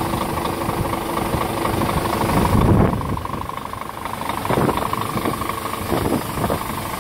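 Scania P410 tipper truck's 410 hp Euro 3 diesel engine idling steadily.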